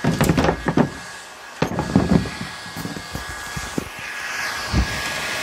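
Electric heat gun blowing with a steady hiss and a faint whine, broken in the first half by a few seconds of irregular knocks and clatter from handling. The hiss comes back up fuller near the end.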